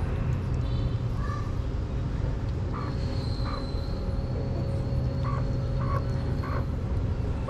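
A kitten eating wet cat food from a plate at close range, over a steady low outdoor rumble. About six short calls come at intervals, several in quick pairs in the second half, and a thin high tone is held for a few seconds in the middle.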